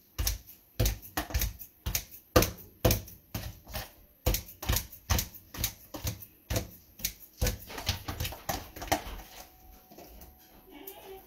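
A run of sharp knocks and clicks from kitchen work at the counter and stove, about two to three a second and a little uneven; they thin out and grow faint about eight seconds in.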